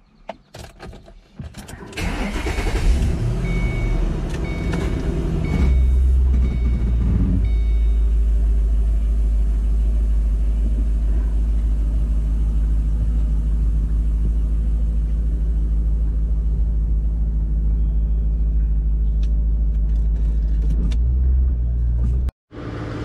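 Ford Mustang GT's V8 engine cranks and starts about two seconds in, heard from inside the cabin after a few clicks. A dashboard chime beeps several times over the next few seconds. The engine then idles steadily as the car backs out.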